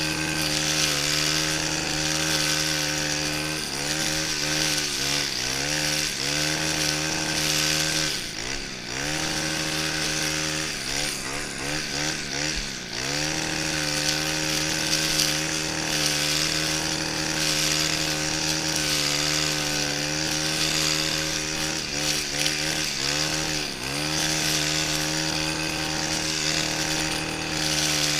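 Stihl FS 131 brushcutter's 36cc engine running at high speed while trimming grass. Its pitch dips and climbs back several times: a few seconds in, for a longer stretch around the middle, and again near the end.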